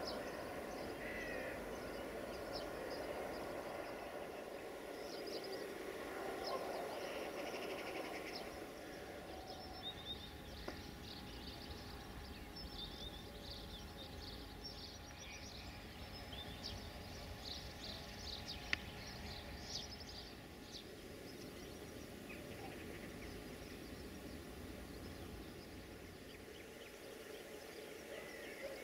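Small birds chirping over a steady low background hum, with the chirping busiest in the middle. A single sharp click stands out about two-thirds of the way through.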